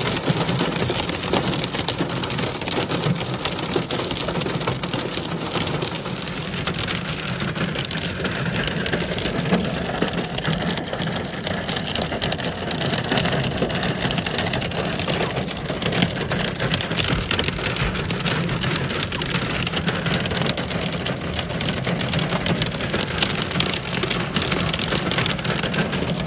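Heavy rain mixed with hail pelting a car's roof and windshield: a dense, unbroken patter of impacts, heard from inside the car.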